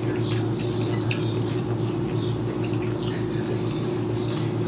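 Wet chewing and lip-smacking of someone eating grilled squid by hand: short, scattered clicky mouth sounds. A steady low hum runs underneath.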